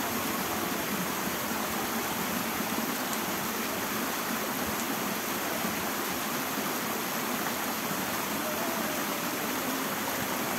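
Steady rush of flowing water, with an even, unchanging level.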